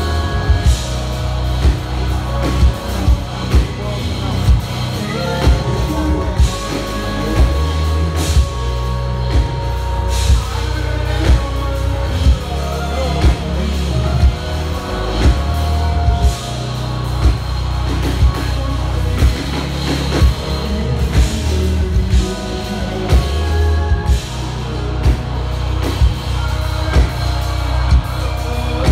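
Live jazz-fusion band playing: a drum kit keeping a steady backbeat, with hits about once a second over deep electric bass and keyboards.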